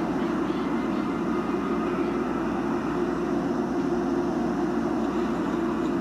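Steady low rumbling background noise with no distinct events, typical of an outdoor urban location.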